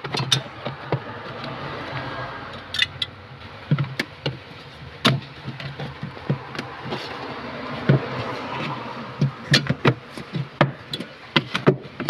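Plastic evaporator fan cover being pushed and worked back into place in a refrigerator's freezer compartment: irregular plastic knocks and clicks with soft scraping between them.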